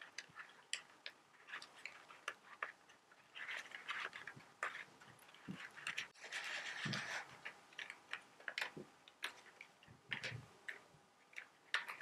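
Paper Rubik's cube being turned by hand: a quick, irregular run of soft clicks and papery rustles as its layers are twisted, with a longer scratchy rustle about six seconds in.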